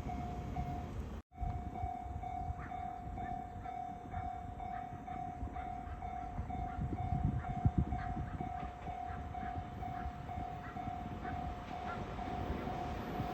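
Railway level-crossing warning bell ringing in an even repeating pattern, over the low rumble of a train at the crossing. The sound drops out completely for a moment about a second in.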